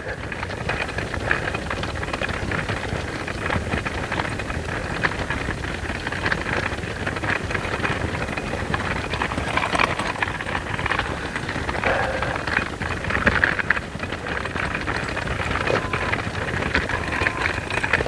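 Walking outdoors: a steady, dense patter of crunching steps and small rattling clicks that never stops.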